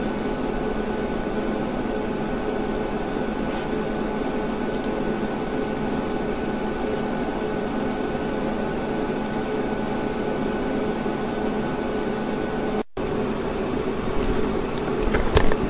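Steady hum and hiss of background room noise, like a fan running, with a few faint steady tones in it. It cuts out for a split second about thirteen seconds in, and a few faint clicks come near the end.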